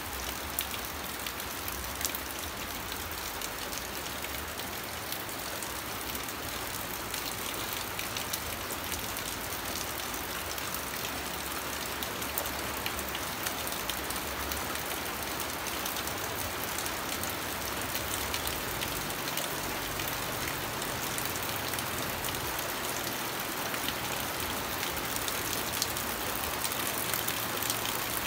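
Steady rain falling, a continuous hiss with many small drop ticks, with a faint low rumble underneath.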